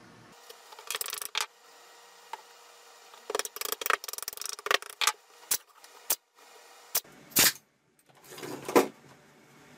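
Light wooden knocks and clicks as small pine strips are set and tapped into a glued frame, then near the end louder sharp bursts from a pneumatic brad nailer firing.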